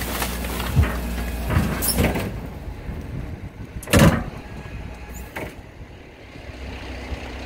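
Garbage truck running steadily with a low hum, while the rubbish and diaper bags in its hopper give several sharp thuds and pops, the loudest about four seconds in.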